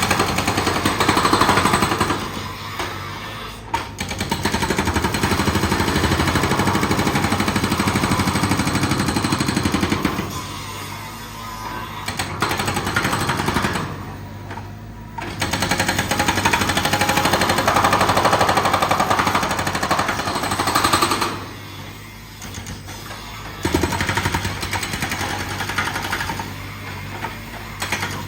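Rock drill or breaker hammering rapidly in several bursts of a few seconds each, with short pauses between them.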